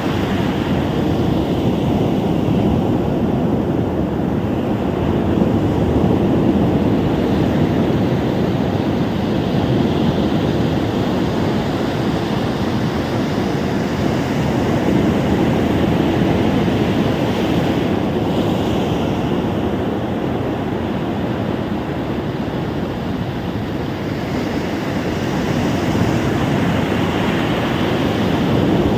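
Ocean surf breaking on a beach, a continuous rush that swells and eases slowly, with some wind on the microphone.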